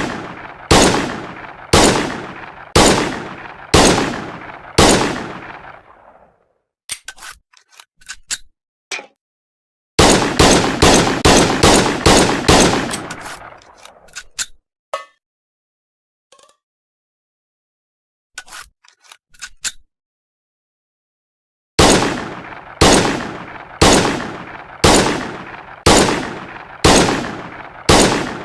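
M1911 .45 pistol shots: a slow string at about one shot a second, a rapid string of about a dozen shots, then another slow string at about one a second. Between the strings come light metallic clicks and clacks.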